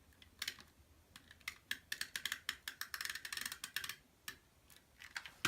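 Stampin' Up Snail adhesive tape runner laying tape along the edge of a paper panel: a run of rapid small clicks, densest in the middle, thinning to a few taps near the end.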